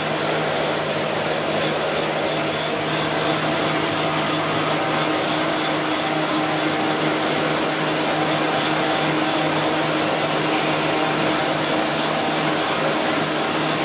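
YT-2 two-colour printing machine running while printing PE plastic film: a steady mechanical whir with a constant low hum.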